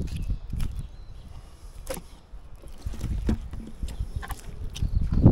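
A knife filleting a snapper on a wooden table: scattered cutting and scraping through flesh and rib bones, with a few sharp clicks and taps of the blade, over a low rumble.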